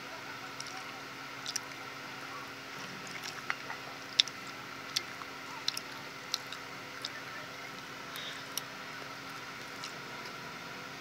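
Metal fork clicking and scraping against a plate as food is speared, in scattered sharp clicks, the loudest about four seconds in, over a steady low hum.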